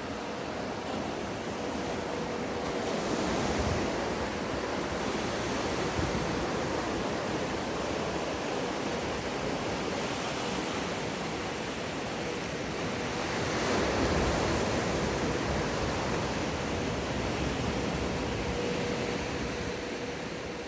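Breaking wave and rushing water in an artificial wave pool, a steady wash that swells louder about three seconds in and again about fourteen seconds in, with a faint steady hum underneath.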